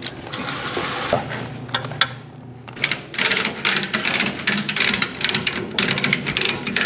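Ratchet strap on a moving dolly being tightened: a hiss of the webbing pulled through the metal ratchet buckle, then the buckle cranked in quick runs of sharp clicks from about three seconds in.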